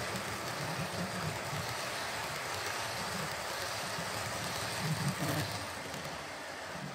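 OO gauge model train, a steam locomotive and a rake of coaches, running along the layout's track: a steady rumble of the wheels on the rails, briefly louder about five seconds in and easing off near the end as the coaches pass.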